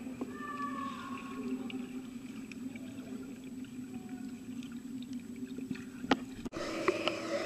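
Muffled underwater sound in a swimming pool, heard through a submerged camera: a steady low hum with faint gurgles and small ticks. About six and a half seconds in it breaks off sharply and gives way to a louder, fuller sound.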